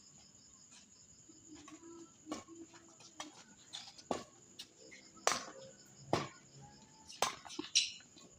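A rally of racket hits: about six sharp strikes spaced roughly a second apart, the loudest coming in the second half.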